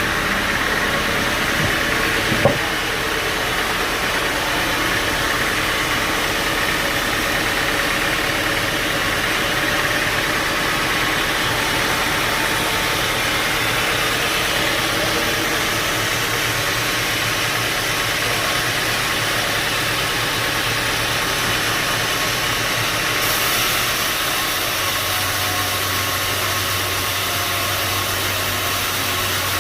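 Sawmill machinery running steadily, a continuous mechanical noise with a sharp knock about two and a half seconds in.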